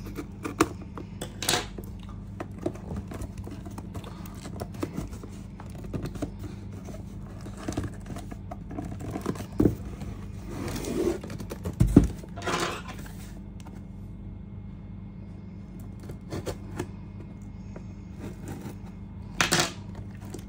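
A cardboard box being opened by hand: scissors cutting packing tape, cardboard scraping, rustling and tearing, with scattered knocks as the box is handled and one louder thump about twelve seconds in.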